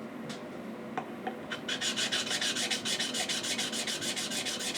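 A few light clicks, then a steel chisel's flat back rubbed rapidly back and forth on a lubricated diamond sharpening stone, a rhythmic scraping of several strokes a second, as the back is lapped flat.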